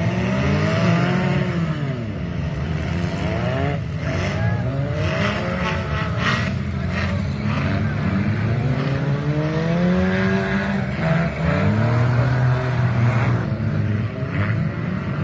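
Several demolition derby cars' engines revving up and down at once, their pitches rising and falling over one another. A few knocks come about four to seven seconds in.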